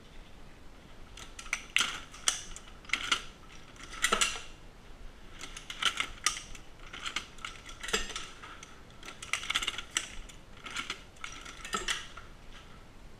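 Dillon SL 900 shotshell reloading press being worked by hand: irregular metallic clicks and clinks, a cluster about every second, with a few sharper clacks.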